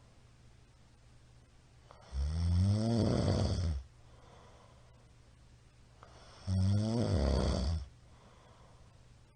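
A middle-aged man snoring loudly in his sleep: two long snores about four seconds apart, each lasting roughly a second and a half, with their pitch rising toward the end.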